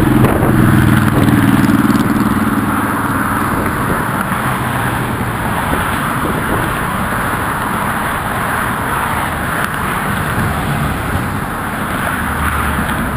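Road traffic passing on the Golden Gate Bridge: an engine goes by close during the first couple of seconds, then fades into a steady rush of traffic and wind.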